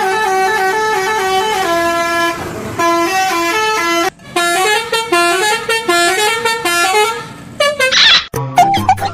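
Basuri telolet musical bus horn playing a quick tune of short stepped notes, pausing briefly twice.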